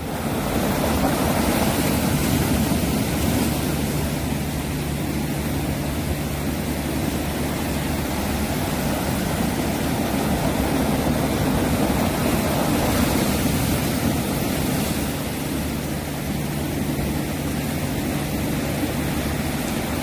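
Sea surf washing and churning over rocks in a steady, continuous rush of water.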